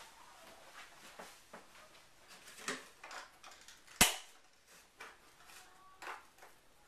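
Handling noise from hands working inside a cardboard box to free a zip-tied RC buggy: light rustles and small knocks, with one sharp snap about four seconds in.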